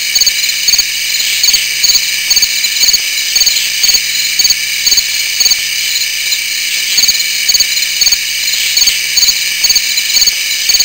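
Night insect chorus: a steady, high-pitched trilling from many insects, pulsing in a regular rhythm.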